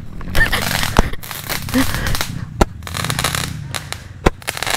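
Small firework rockets fired from a homemade tube launcher: hissing flights and three sharp pops about a second and a half apart.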